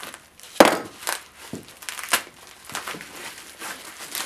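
Plastic packing being handled, bubble wrap and tape, crinkling in irregular crackles with a sharp crack just over half a second in.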